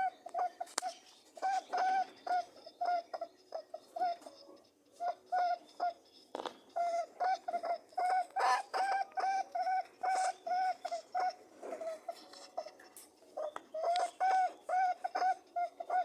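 Mating rabbits honking: a rapid series of short, pitched honks, about three or four a second, in runs broken by brief pauses about a third of the way in and again about three-quarters through.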